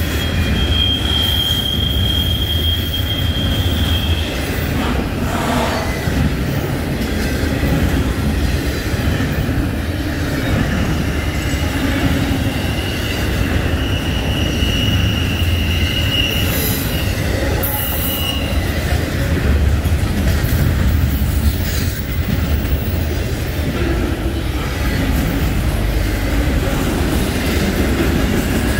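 Double-stack intermodal freight train rolling past at close range: a steady rumble of wheels on rail. A high, thin squeal from the passing cars rises out of it about a second in for a few seconds, and again for about six seconds in the middle.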